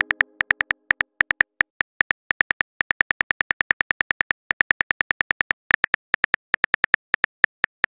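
Phone keyboard click sound effects, about six short ticks a second with a few brief pauses, as a text message is typed out letter by letter.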